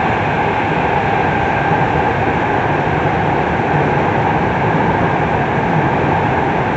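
Steady running noise heard from inside a Tokyu 3000 series electric train car travelling through a tunnel, with no rise or fall in pitch.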